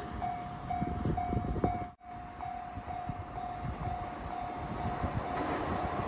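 Japanese level crossing alarm ringing in steady repeated electronic dings, about two a second, with a brief dropout about two seconds in. A low rumble underneath grows louder near the end.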